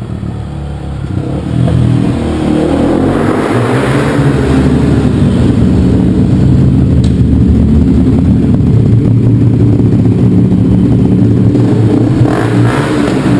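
Motorcycle engine running loud in a tunnel. It builds up over the first couple of seconds, then holds a steady, high level.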